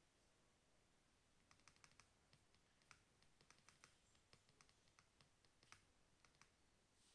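Faint, irregular clicking of computer keyboard keys, starting about a second and a half in and stopping about a second before the end.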